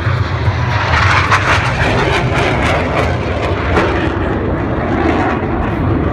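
Loud jet engine noise from a Blue Angels F/A-18 Hornet flying past the crowd, a steady rushing noise with a deep rumble underneath.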